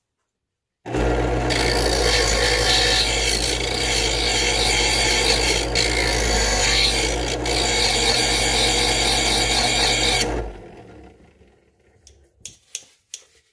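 Electric knife sharpener switched on about a second in: its motor hums steadily while a scissor blade grinds against the abrasive wheel in the slot, sharpening a dull blade on one side only. The motor shuts off and winds down about ten seconds in, followed by a few short sharp clicks.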